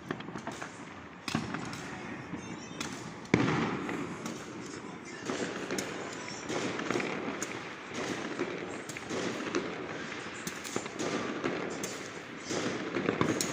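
New Year fireworks going off continuously: a dense run of bangs and crackling, with one sharp, loud bang about three seconds in.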